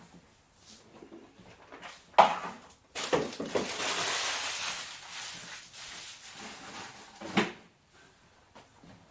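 Kitchen work noises: a sharp clack of a dish or utensil about two seconds in, then about four seconds of hissing that fades away, and another clack near the end.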